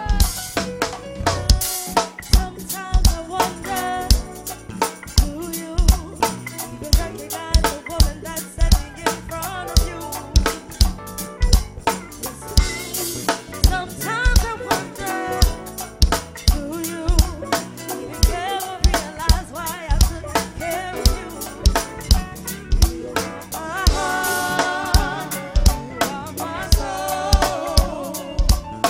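Early-2000s R&B music from a DJ set, with a steady drum-kit beat.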